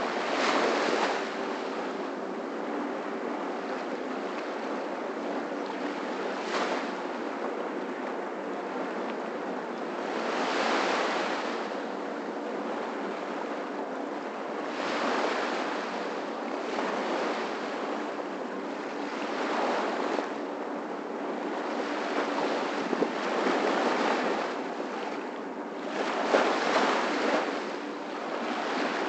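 Small waves washing up on a sandy beach, a steady surf hiss that swells every few seconds as each wave comes in.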